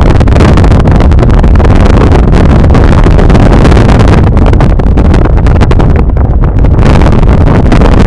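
Loud, steady wind buffeting on the microphone of a camera moving along in a vehicle, a dense rumble with crackling, mixed with the vehicle's road and engine rumble.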